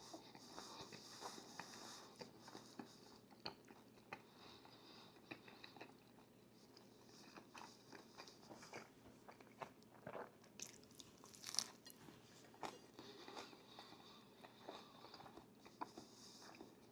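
Crunchy food being bitten and chewed close to the microphone: a run of small, irregular crunches and clicks, a little louder about ten to twelve seconds in.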